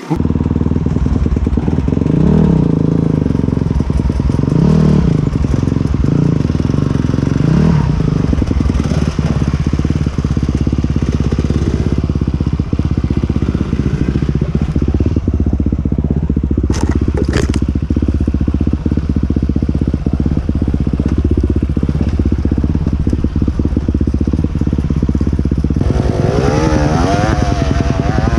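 Enduro motorcycle engine running hard under load, its revs rising and falling several times. Near the end the engine note wavers quickly.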